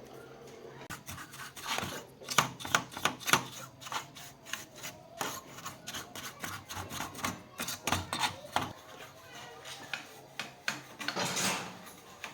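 Irregular clicks, taps and scraping, as of small tools and parts being handled, with a longer rasping scrape near the end.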